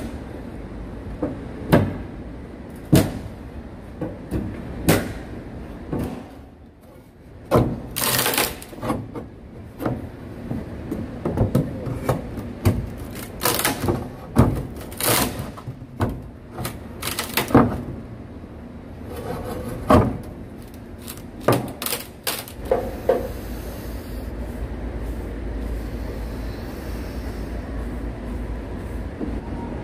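Long steel pry bar prising old wooden stair treads off their frame: irregular sharp knocks, clanks and cracks, sometimes a few a second. About three-quarters of the way through, the knocking stops and a steady low rumble takes over.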